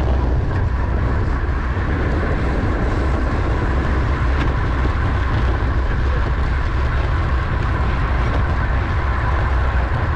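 Wind rushing over the microphone of a racing road bike at speed, a steady low rumble with tyre and drivetrain noise mixed in. A faint steady whine sits above it throughout.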